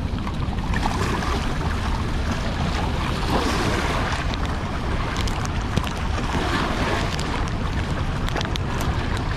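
Fast water rushing steadily in the outflow below open spillway gates, with wind buffeting the microphone.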